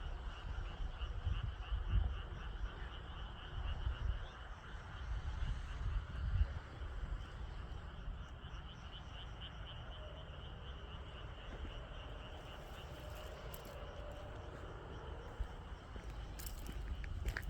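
A steady, rapidly pulsing high trilling chorus of calling animals, over a low rumble that is strongest in the first few seconds. There are a few sharp clicks near the end.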